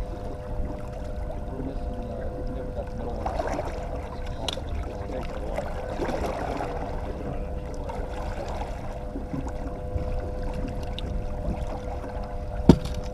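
Boat motor running steadily at trolling speed, a constant hum over the rumble of water and wind. A single sharp knock near the end.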